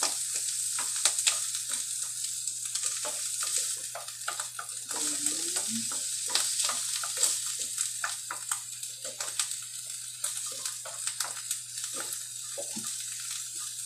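Mushrooms frying in hot oil in a frying pan, sizzling steadily, while a wooden spatula stirs them with frequent short scrapes and taps against the pan.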